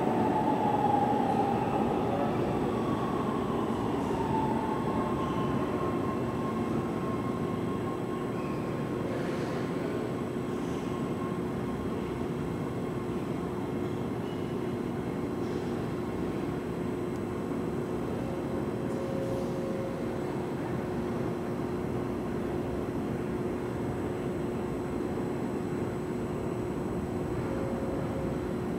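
Breda A650 subway train pulling away down the tunnel, its rumble and a high whine fading over the first several seconds. A steady hum of the underground station is left, with one constant low tone in it.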